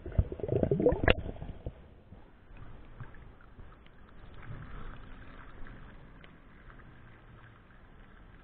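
River water gurgling and sloshing around an underwater microphone as it is pulled up out of the river, loudest in the first second and a half. It is followed by faint dripping.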